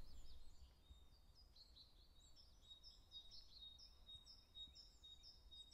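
Faint birdsong: a steady run of short, high chirps repeating several times a second, over a faint low rumble.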